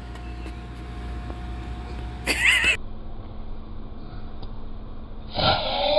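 A short, loud child's shriek about two seconds in. Near the end a long, wavering, high cry starts.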